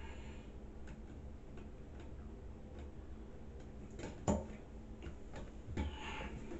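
Faint, regular ticking, with one sharp knock about four seconds in.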